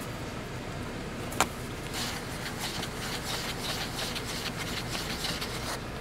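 Fingertip rubbing and wiping over a camera lens right at the microphone: scratchy handling noise, with a single click about one and a half seconds in. Under it, the steady low hum of a car idling.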